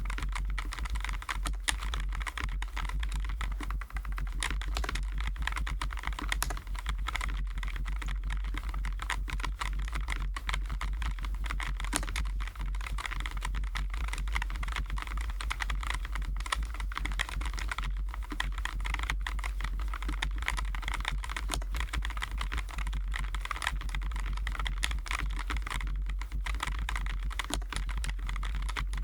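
Continuous fast typing on a Keychron J9 low-profile mechanical keyboard with Keychron Milk POM switches and PBT keycaps: a dense, even stream of soft key clicks over a steady low hum.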